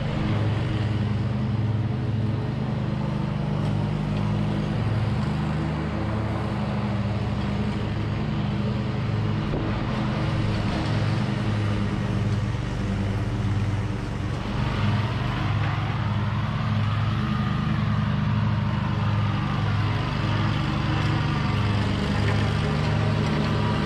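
Exmark walk-behind commercial mower's engine running while cutting grass, its note pulsing about once a second. The owner blames the odd sound on a carburetor he has not yet cleaned.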